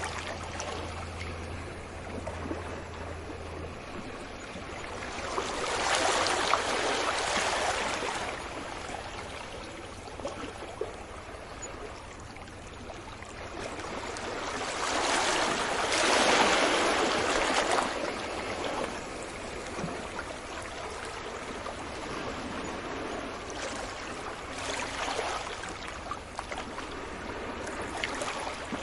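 Sea waves washing gently onto a beach: a steady wash of surf that swells as two larger waves break, about a quarter of the way in and again just past the middle, with smaller ones after.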